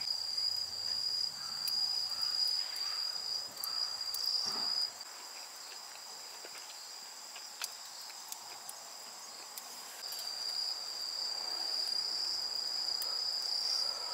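Insects trilling in a steady, high-pitched chorus, with a few faint crackles from a wood campfire.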